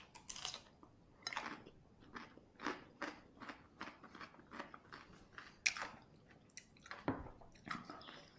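A person chewing crisp, crunchy food: a quick run of short crunches, several a second.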